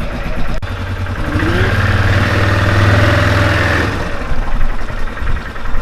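Yamaha Grizzly 450 quad bike's single-cylinder engine, just started with a little choke. A sharp click comes just over half a second in, then the engine picks up revs, holds them steadily for a couple of seconds, and drops back to idle a little after the middle.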